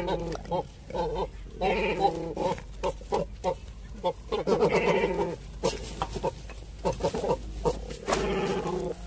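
Cormorants calling again and again, a series of pitched calls each lasting about half a second to a second.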